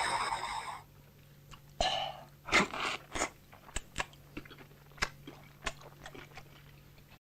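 Trailer music fading out, then a gory crunching sound effect: about a dozen irregular crunches and clicks spread over several seconds, with the two loudest near the start, over a faint low hum.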